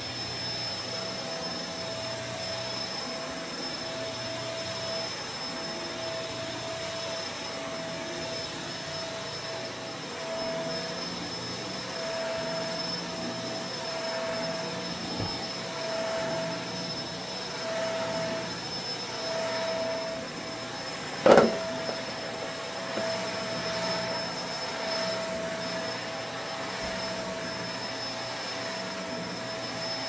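Upright vacuum cleaner running steadily over carpet, its hum swelling and easing as it is pushed back and forth. One sharp knock about two-thirds of the way through.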